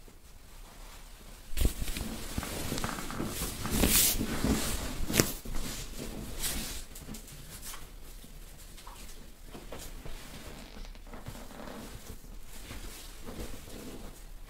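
Clothing and sheets rustling, with soft knocks, as a massage therapist shifts off a padded massage table; it starts suddenly about a second and a half in and is loudest for the next few seconds, then fades to scattered faint rustles and clicks.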